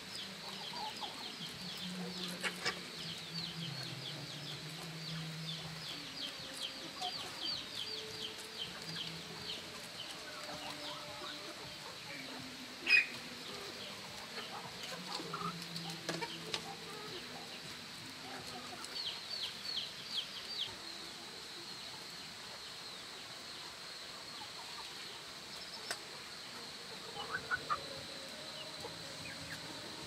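Chickens clucking, with quick runs of short, high, falling chirps over the low clucks. A single sharp knock near the middle is the loudest sound.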